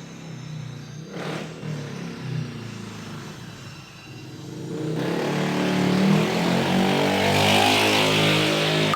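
Music with stepping notes, joined about halfway through by a rising wash of noise that grows louder, then cut off abruptly at the end.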